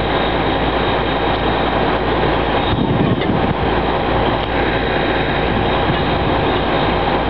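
Burro railroad crane's engine running steadily as the crane is unloaded down a trailer ramp, with a brief louder surge about three seconds in.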